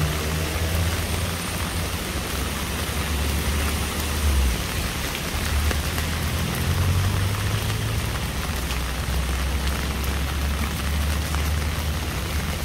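Steady rain falling, with a low rumble underneath throughout.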